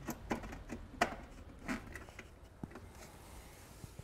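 Several light plastic clicks and knocks of a diagnostic cable plug being handled and fitted into the diagnostic port inside a scooter's plastic glove box, the loudest about a second in.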